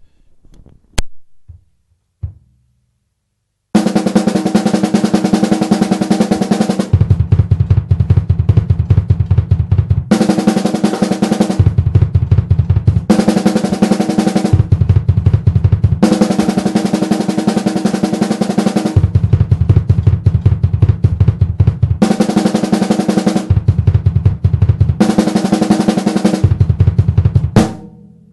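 Drum kit: after a few light clicks, rapid unbroken strokes begin about four seconds in. They switch back and forth between snare-drum strokes from the sticks and bass-drum strokes from both feet on a double pedal. Each passage lasts about one and a half to three seconds.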